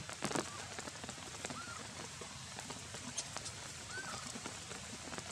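Steady rain pattering on wet ground, with two short, faint high calls, one about a second and a half in and one about four seconds in, each rising then falling, from a newborn long-tailed macaque.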